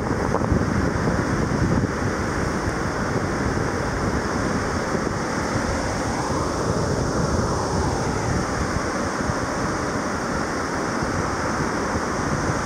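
Ocean surf washing on a sandy beach, with wind buffeting the microphone; a steady rushing noise with no distinct events.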